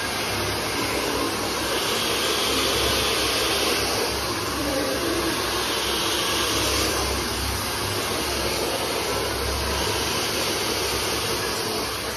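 Handheld hair dryer running steadily, blow-drying wet hair.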